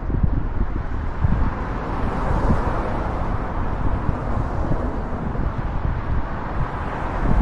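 Cars passing on a street, mixed with steady wind noise on the microphone.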